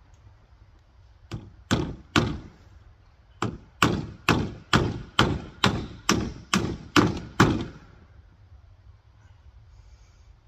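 Hammer nailing corrugated PVC roofing sheets to a wooden roof frame. Three blows come about a second in, then a steady run of about ten blows, a little over two a second, which stops well before the end.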